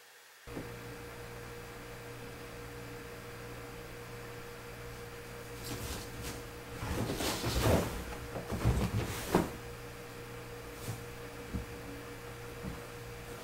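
Kittens scrambling on a sofa and dragging its cloth cover off: a few seconds of rustling fabric and several sharp knocks, loudest around the middle, over a steady hum in the room.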